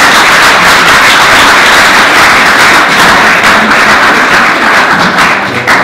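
Audience applauding, a dense steady clatter of many hands clapping that drops away near the end.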